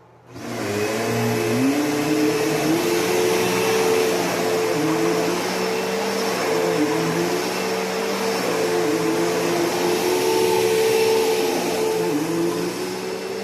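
Bissell PowerForce Bagless Turbo 6596 upright vacuum cleaner's 12-amp motor switched on, spinning up within the first second, then running steadily and loudly with a held whining note and a lower note that wavers.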